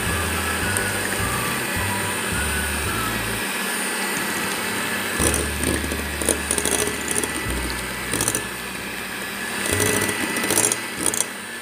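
Electric hand mixer running at high speed, its twin beaters whipping chilled cream in a bowl: a steady motor whine, with bursts of rattling where the beaters knock the bowl about five seconds in and again near the end. Background music with a low, stepping bass plays alongside.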